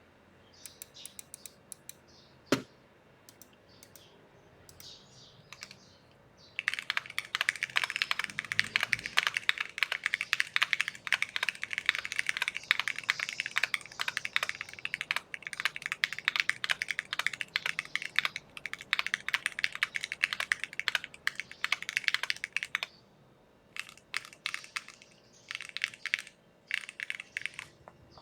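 Typing on an Arc 60 custom mechanical keyboard with an aluminium plate, lubed Cherry MX Black Hyperglide linear switches and PBT keycaps. A few scattered keystrokes and one sharp, loud click come first, then fast, continuous typing from about six seconds in. Near the end the typing pauses briefly and returns in a few short bursts.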